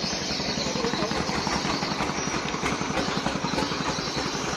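Boat engine idling steadily, a fast even low chugging.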